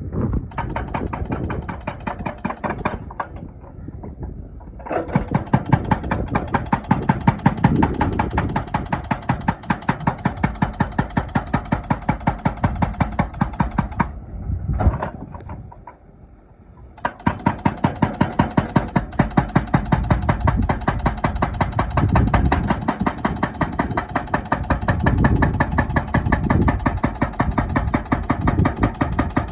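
Excavator-mounted hydraulic breaker hammering in a fast, steady run of blows over the excavator's running engine, stopping twice for a few seconds and then starting again.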